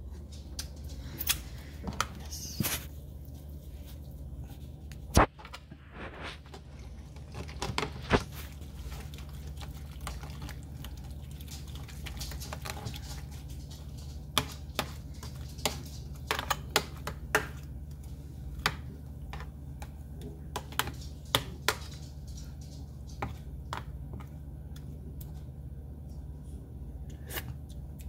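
Metal spoon clicking and scraping against a glass food container while stirring wet chopped fish ceviche: irregular sharp clicks, a few of them louder, over a steady low hum.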